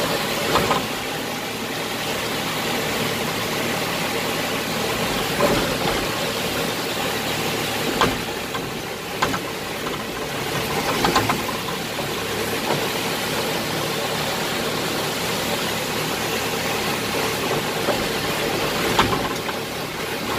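JCB backhoe loader's diesel engine running steadily, heard from inside the cab while the backhoe arm and bucket are worked, with a few short knocks along the way.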